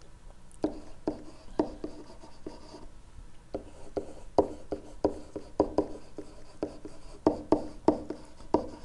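Stylus writing by hand on a hard screen surface: a run of short, irregular taps and scratches as each stroke of the words is drawn.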